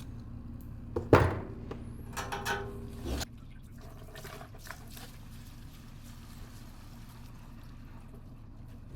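Gasoline splashing and pouring as the fuel pump is pulled out of a Honda CBR600RR's fuel tank, with a sharp knock about a second in and a short run of pouring that stops at about three seconds.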